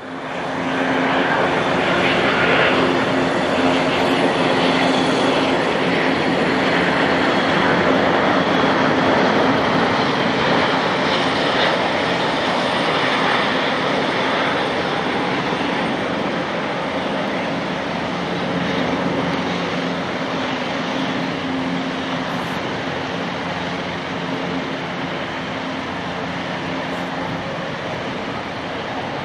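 Boeing 777-200ER's twin jet engines as the airliner comes in to land and rolls out on the runway: a loud, steady engine noise with a faint high whine. It is loudest in the first ten seconds as the plane passes close, then eases off slowly.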